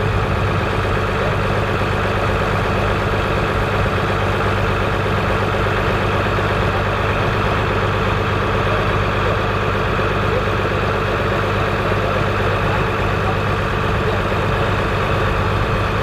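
County 1184 TW four-wheel-drive tractor's six-cylinder diesel engine idling steadily while the tractor stands still.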